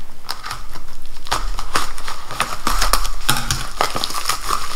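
Scissors cutting into a plastic bubble mailer, then hands tearing it open, with the plastic crinkling in an irregular run of sharp crackles.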